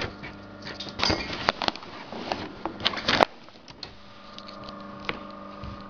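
Stiff sailcloth rustling and crinkling as it is handled, with a few irregular sharp clicks, the loudest about three seconds in, over a steady electrical hum.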